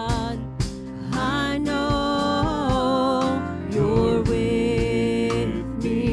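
Worship music: a gospel song sung with instrumental backing and a steady beat.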